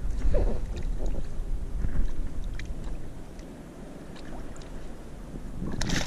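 A low rumble through the first half, then, near the end, a hooked fish splashing at the surface as it is pulled alongside the boat.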